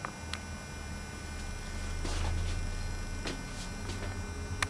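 A low steady hum that grows a little louder about two seconds in, with a few faint clicks.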